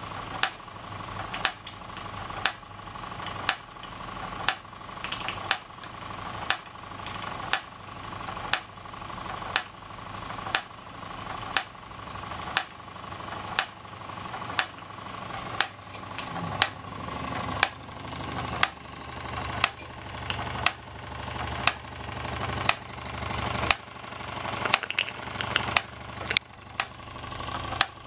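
Toy steam engines driving line shafting and belt-driven toy workshop models, running steadily with a sharp click about once a second.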